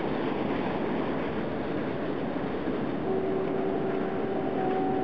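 Wind rushing over the camera's microphone, a steady, even noise. About three seconds in, a steady pitched tone joins it and holds for about two seconds.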